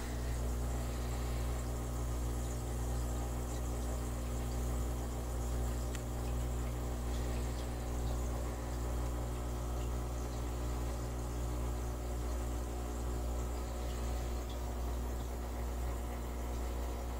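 Steady electric hum of a running aquarium pump, with water and air bubbles bubbling in the tank.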